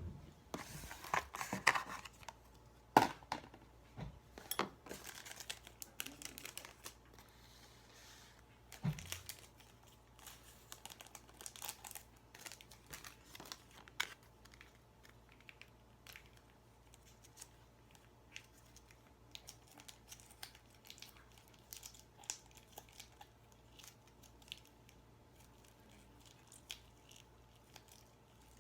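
Plastic food packaging crinkling and tearing, with many short clicks and rustles, densest and loudest in the first few seconds and then scattered and fainter: a Samyang spicy ramen pack and its packets being handled and opened.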